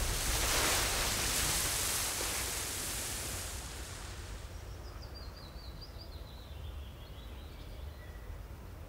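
Rushing, splashing water noise that is strongest at first and fades steadily over several seconds. About halfway through, a faint high warbling chirp joins it.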